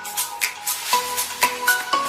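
Background music with melodic notes and a regular shaker-like percussion beat.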